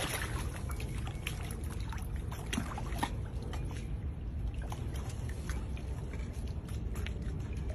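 Shallow pond water lapping and trickling as an alligator moves at the surface, with scattered small drips and ticks over a steady low rumble.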